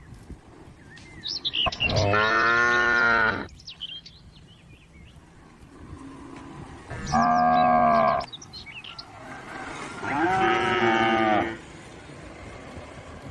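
A cow mooing three times, each a long call of about a second and a half.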